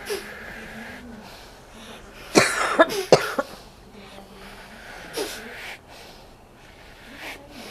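A person coughing: a harsh cluster of three quick coughs about two and a half seconds in, then one fainter cough a couple of seconds later.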